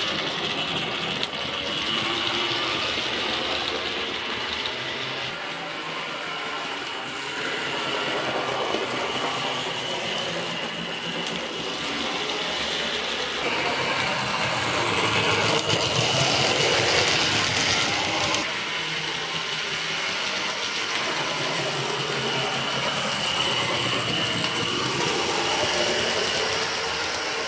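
Hornby model trains running on the layout's track: a steady electric motor whine with the wheels and wagons rattling along the rails, getting louder for a few seconds around the middle as a train passes close.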